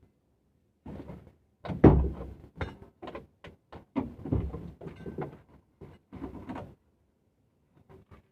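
A run of clunks, knocks and rattles from hard objects being handled, the loudest about two seconds in and again about four seconds in, then dying away near the end.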